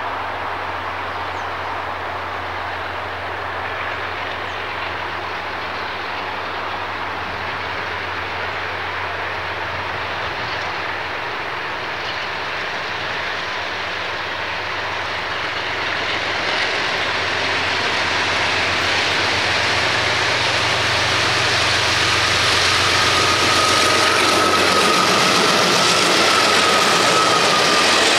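Consist of six KiwiRail DXC class diesel-electric locomotives under power, their diesel engines drumming in a steady low drone. It grows louder as they approach, with a thin steady high tone for a few seconds shortly before they pass close with rumbling wheels on the rails.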